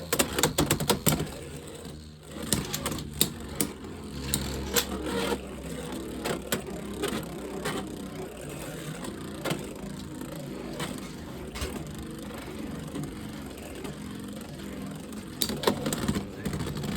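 Beyblade X spinning tops whirring in a plastic stadium, with frequent sharp clacks as they collide and rattle against the walls.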